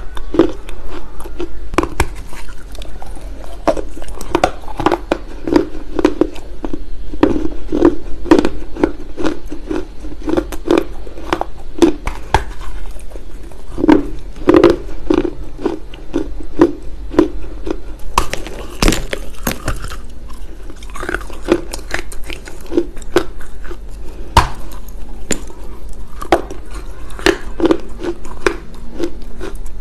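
Close-miked chewing of dry loess clay, with rhythmic chewing about twice a second and sharp crunches of the gritty clay scattered throughout.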